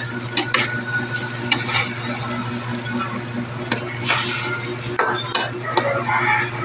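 A spatula stirring a thick, creamy vegetable mixture in a wok, scraping and clattering against the pan in irregular strokes. A steady low hum runs underneath.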